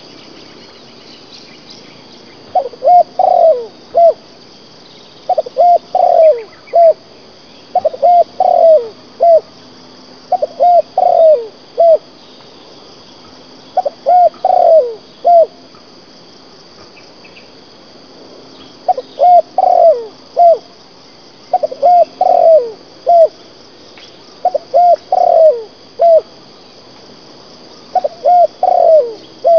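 A dove cooing: short phrases of about four coos, the middle notes falling in pitch, repeated every two to three seconds, with a pause of a few seconds about halfway through.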